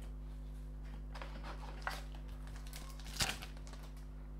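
2023 Panini Donruss Optic football cards handled in the fingers, sliding against each other with a few soft flicks and rustles. The sharpest flick comes a little after three seconds in. A steady low electrical hum runs underneath.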